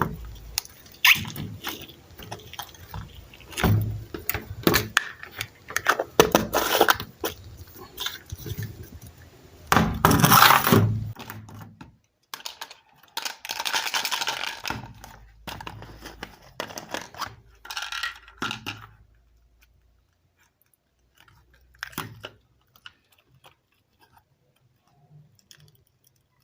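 Slime being squeezed and worked by hand, giving crackling, crunchy clicks and squishing bursts. The sound thins out to a few small clicks over roughly the last third.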